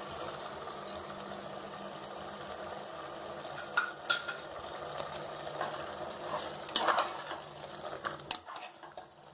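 Metal slotted ladle stirring paneer cubes into masala gravy in a pressure cooker pot over a low, steady sizzle. The ladle scrapes and clinks against the pot several times, around the middle and near the end.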